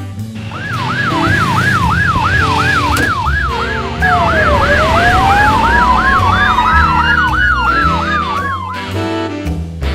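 Emergency vehicle sirens: a fast yelp sweeping up and down about three times a second, joined about four seconds in by a slower wail that dips, climbs and falls again.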